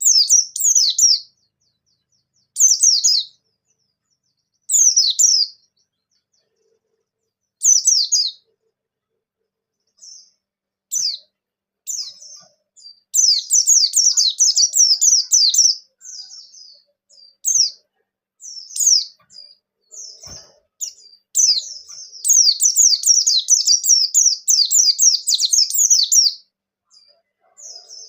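Pleci bustomi white-eye singing in the wild 'ngalas' style: short bursts of high, quickly falling chirps every couple of seconds, then longer fast runs of notes about halfway through and a long unbroken run near the end.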